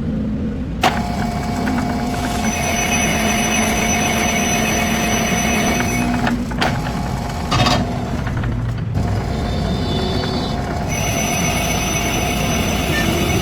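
Metalworking machinery running steadily with a whining, squealing tone over a low hum; the sound breaks off abruptly and starts again several times.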